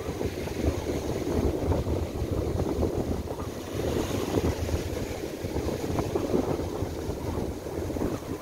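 Strong, gusty wind buffeting the microphone over surf breaking on a sandy beach, a continuous rushing roar that swells and eases from moment to moment.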